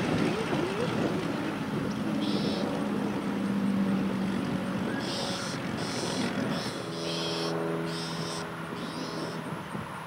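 A steady engine drone that shifts to a slightly different pitch about seven seconds in, with short high bird chirps repeating over it from about halfway.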